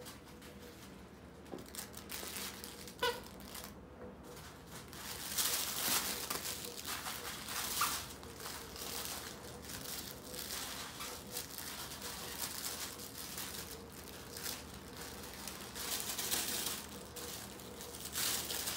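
Miniature poodle puppies playing with plush toys in a dog bed: irregular rustling and crinkling as they tug and tumble, with a brief squeak about three seconds in.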